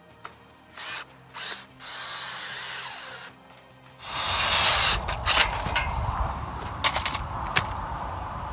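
Cordless drill run in short bursts and a brief steady whir, driving bolts into the tower frame. About halfway through it gives way to a louder rushing noise with a few sharp metal clicks and clanks.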